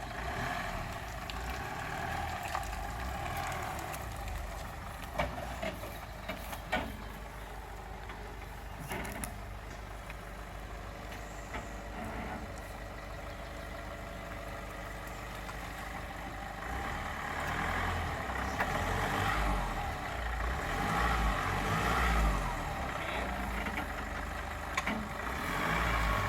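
Off-road 4x4 engine idling, with a few short knocks in the first half. About two-thirds of the way through, the engine runs louder and deeper.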